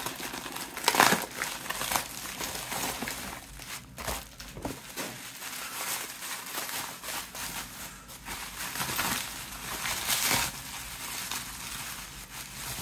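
Plastic mailer bag and bubble wrap crinkling and rustling as they are handled and pulled open by hand, with louder crackles about a second in and again around nine to ten seconds in.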